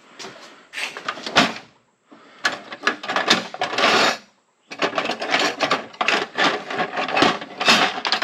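Hands working at plastic car interior trim: a busy run of clicks, knocks and scrapes as a panel piece is handled and pried. Two brief gaps break it up, about two and four and a half seconds in.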